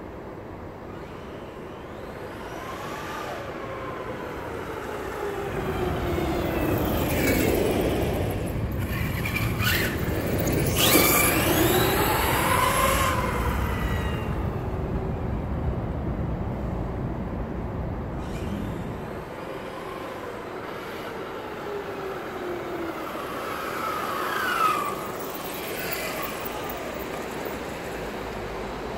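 Losi LST XXL-2 RC monster truck driving along the road, its motor revving so the pitch rises and falls as it comes close and runs off again. It is loudest through the middle, with one brief sharp burst near the end.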